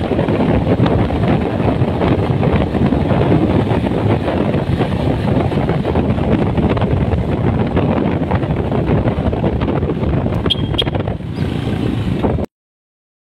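Wind buffeting the microphone and the road noise of a motorcycle travelling at highway speed, a steady rushing with no engine note standing out. The sound cuts off abruptly near the end.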